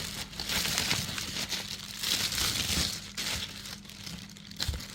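Packaging crinkling and rustling in irregular waves as it is handled and opened, with scattered small clicks.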